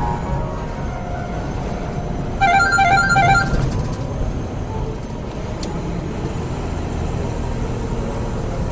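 Steady low rumble of a truck cab's engine and road noise at highway speed. About two and a half seconds in, a short run of bright electronic tones repeats quickly for about a second and is the loudest thing heard.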